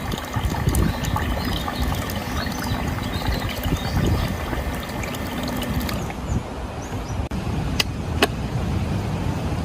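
Strong wind buffeting the microphone: a steady low rumble, with a fine crackle above it for the first six seconds and two sharp clicks near the end.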